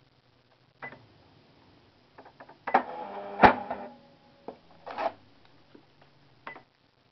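Cash register being operated: scattered sharp key clicks, then a louder rattling stretch a little under three seconds in with one loud sharp clack in it, followed by a few more clicks.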